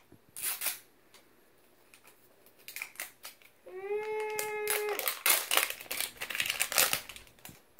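Plastic wrapping on an LOL Surprise ball crinkling and tearing as a layer is peeled off, loudest in the last few seconds, with a few light clicks of handling before it. About four seconds in there is a short hummed note, held for about a second.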